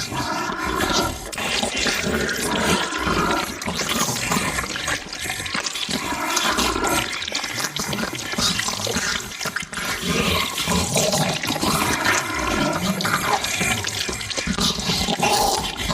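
Monster-eating sound effect: continuous, dense chewing and slobbering noise, with brief growl-like vocal tones rising out of it every few seconds.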